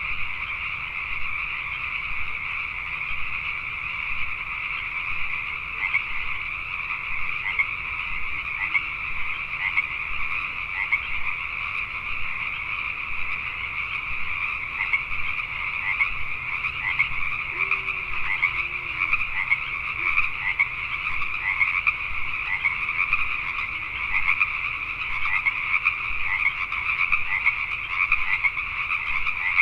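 A dense chorus of Pacific tree frogs (Pacific chorus frogs), many calling at once. Their short, overlapping calls merge into a steady, continuous din.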